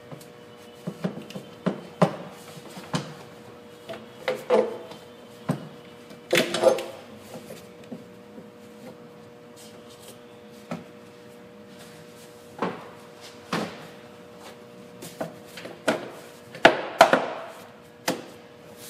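Plastic air intake snorkel being pushed and worked onto the air box and throttle body by hand: scattered clicks and knocks of hard plastic with a few rubbing scrapes.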